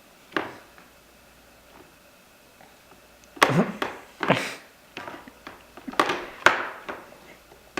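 Knocks and thunks of a high chair tray being handled and banged against the high chair: a single knock, then after a pause a run of about five louder knocks.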